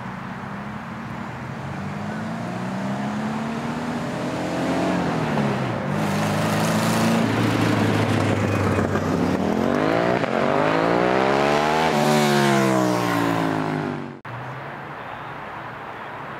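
A car engine accelerating, its pitch climbing, dipping about five seconds in, then climbing steeply and growing louder to a peak around twelve seconds in before falling away. The sound cuts off abruptly near the end.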